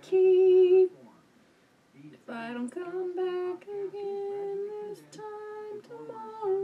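A woman singing unaccompanied in long, wordless held notes: one loud note at the start, a pause of about a second, then a run of sustained notes at different pitches.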